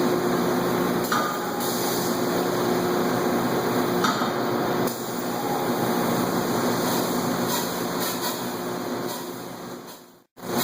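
Air-powered Chambersburg forging hammer running: a steady, loud din of machinery and air with a few faint knocks. It cuts off abruptly near the end.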